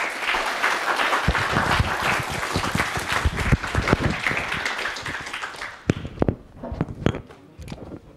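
Audience applauding. The applause is dense and full at first, then thins to scattered separate claps after about six seconds.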